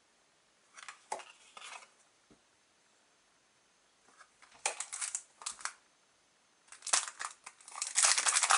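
Trading cards handled in a stack, giving brief papery rustles a second in and again about five seconds in; near the end a loud, continuous crinkling of a foil booster-pack wrapper begins as it is picked up and worked open.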